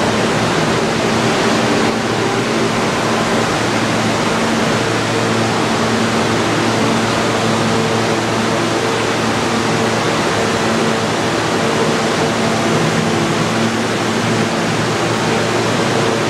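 Kawasaki R160B subway train standing with its doors open, its air-conditioning and auxiliary equipment running: a steady hiss with a low, even hum.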